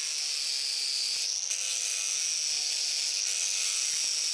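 Angle grinder running against a white block, its motor giving a steady high whine that wavers slightly in pitch as it grinds.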